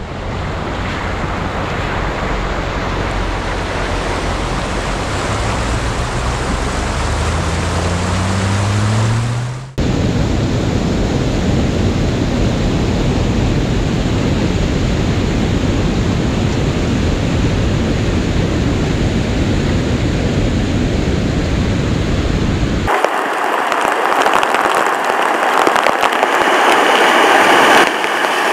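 Muddy floodwater rushing and churning, heard in several shots that change abruptly, with a low hum rising in pitch near the end of the first shot. In the middle stretch it is a heavier, fuller rush of water pouring over a bank. In the last few seconds it turns into a brighter hiss as a car's tyre drives through the flood and throws up spray.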